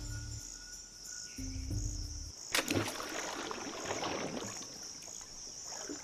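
A rubber tree seed pod bursts with one sharp crack about two and a half seconds in, followed by about two seconds of seeds scattering and landing. Under it runs a steady high insect chirring, and a few low music notes sound in the first two seconds.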